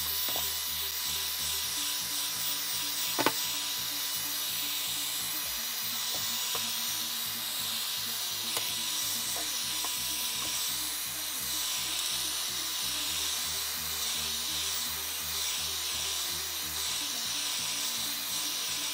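Hot-air blower running with a steady hiss while heating a phone's back glass to soften its adhesive, over background music with a low stepping bass line; a few light clicks.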